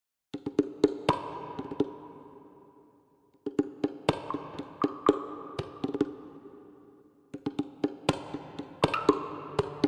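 Intro music of quick, sharply struck percussive notes that ring on and fade, in three short phrases about three and a half seconds apart.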